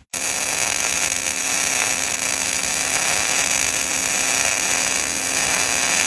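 CO2 gas-shielded MIG welding arc running steadily as the wire is weaved to lay a fish-scale bead: a continuous dense hiss with a faint low hum underneath.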